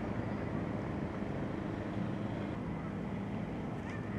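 A boat's engine droning steadily, a low even hum with the wash of water under it.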